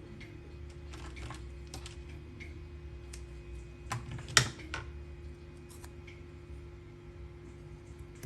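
Small clicks and taps of parts and tape being handled on a workbench, with one sharp click about four seconds in, over a steady low hum.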